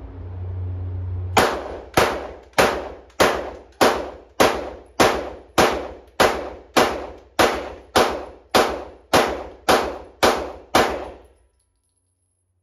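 A long, evenly timed string of about sixteen sharp bangs, a little under two a second, each ringing out briefly, after a steady low hum. The bangs stop suddenly and the sound cuts out completely.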